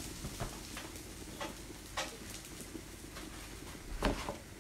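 Bread cubes frying in olive oil in a pan on a gas hob: a faint steady sizzle, with a few light knocks and a louder one about four seconds in.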